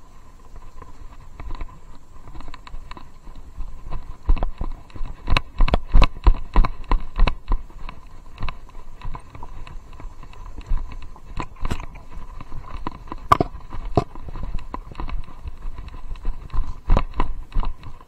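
Loose chest-harness camera knocking and clicking in its mount as it is jostled on horseback, mixed with the dull steps of the barefoot horse. The knocks come irregularly, thickest around five to seven seconds in and again around thirteen seconds and near the end.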